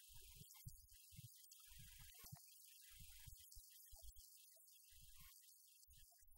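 Near silence: a faint low electrical hum that keeps dropping in and out, over faint hiss.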